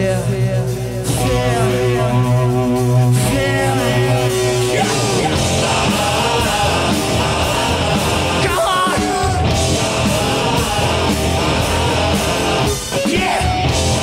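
Dutch punk rock band playing live with singing: a sparser passage of held notes for the first few seconds, then the full band with drums and cymbals kicks in about five seconds in.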